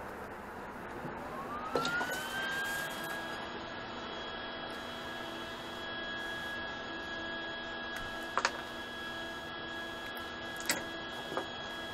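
Arc welding machine switched on: its cooling fan spins up with a rising whine over about a second, then runs steady with a hum. A few sharp clicks from the electrode holder being handled near the end.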